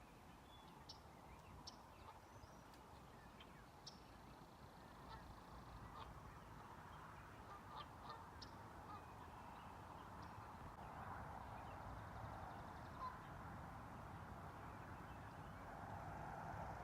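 Faint distant birds calling: short high chirps scattered throughout, over a soft background of calls.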